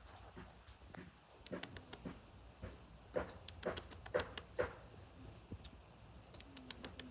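Irregular light clicks and taps, a quick cluster through the middle and a few more near the end.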